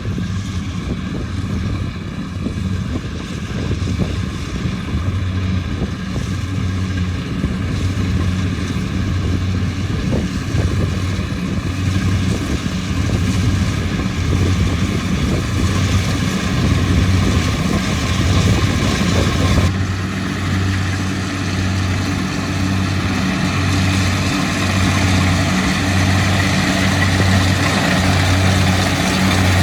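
Kubota DC-70 rice combine harvester working, its diesel engine running with a steady drone and an evenly pulsing low hum. The sound changes abruptly about two-thirds of the way through.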